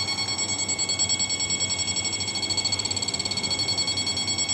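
Homemade electric shock-fishing machine (high-power inverter) running, giving a high-pitched electronic buzz made of several steady tones that pulse fast and evenly.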